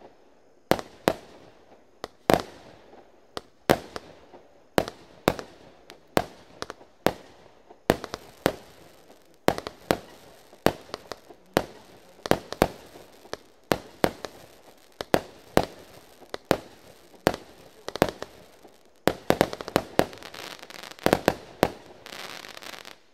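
Lesli Pyro Parade 192-shot firework cake firing shot after shot, about one or two sharp bangs a second as the shells burst. Near the end the shots come faster under a dense crackle, then stop suddenly.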